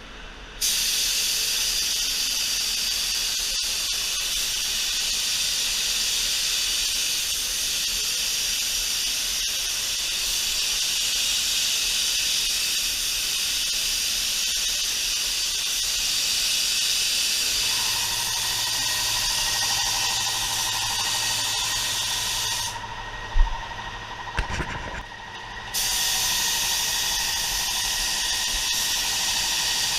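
Iwata LS400 paint spray gun with a 1.4 tip spraying clear coat: a steady loud hiss of atomising air. The trigger is let go for about three seconds with a click near the three-quarter mark, then the spraying resumes; a low hum and a steady whine run underneath from a little past halfway.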